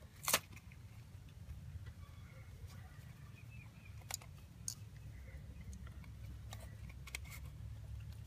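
Scattered light metallic clicks and taps of hand tools and parts being handled in the engine bay, with one sharper click about a third of a second in, over a steady low rumble.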